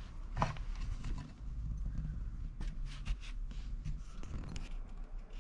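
Irregular clicks and knocks from handling a garment on a heat press, over a steady low hum.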